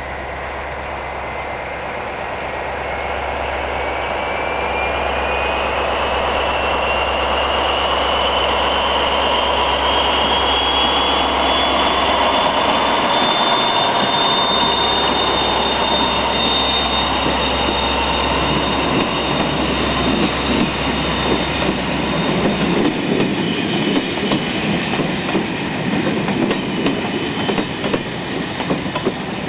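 SNCF BB 67500-series diesel locomotive hauling a train of passenger coaches past at close range, its high whine rising in pitch as it approaches and the noise loudest about halfway through. Once the locomotive has passed, the coaches roll by with a rhythmic clickety-clack of wheels over rail joints.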